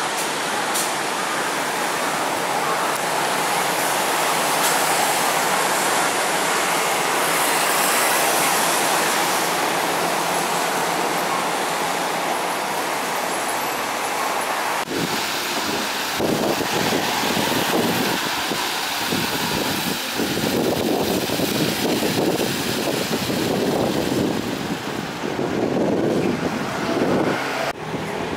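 City bus running and pulling away, over steady traffic noise. From about halfway the sound turns uneven and gusty, like wind on the microphone.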